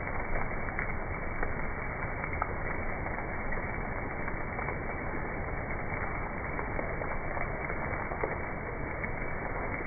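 Steady muffled hiss with scattered crackles and pops, many small clicks a second.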